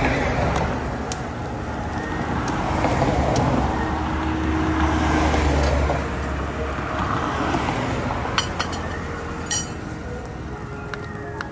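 Road traffic: a passing vehicle's rumble swells and then fades about six seconds in. A few light clicks follow near the end.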